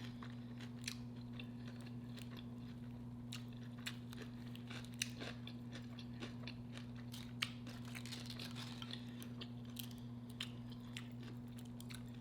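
Close-up chewing with scattered crunchy bites of pickle and small wet mouth clicks, over a steady low hum.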